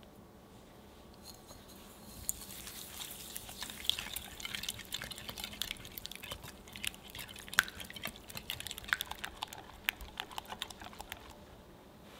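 Wire whisk beating egg with sugar in a glass bowl: quick, uneven wet clicks and taps of the wires against the glass. It starts about two seconds in and stops shortly before the end.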